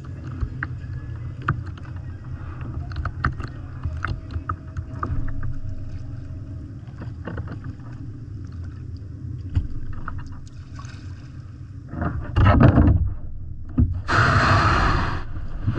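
Kayak out on the water: a low rumble with scattered small knocks and clicks, then a louder burst about twelve seconds in and a rush of splashing water near the end.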